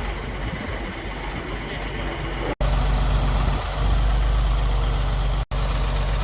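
A large engine idling steadily with a low hum, over a rushing background. The sound drops out completely for an instant twice, about two and a half seconds in and near the end.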